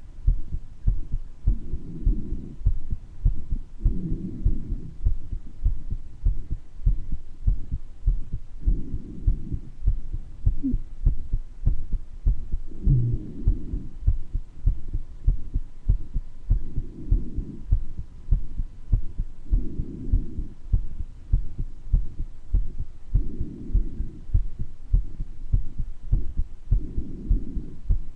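A human heartbeat with a murmur, thumping steadily and low. Breath noise swells every few seconds, and two brief pitched wheezes come near the middle, the wheezes a sign of a mild bronchitis.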